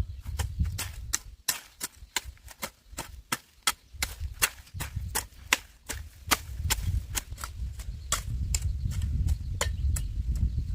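A quick, irregular run of sharp snaps or cracks, about three a second, over a low rumble that fades in the middle and returns near the end.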